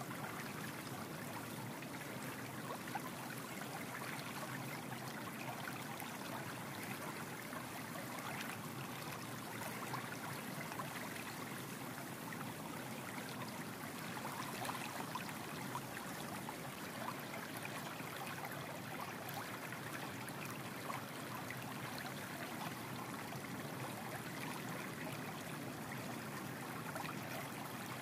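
Steady wet swishing of a runny egg-and-oil batter being whisked in a ceramic bowl with a spring whisk.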